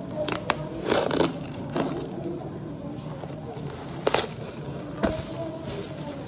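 Packaging being handled and opened: cardboard and plastic rustling and crinkling, with several short sharp crackles and knocks, the loudest about four seconds in.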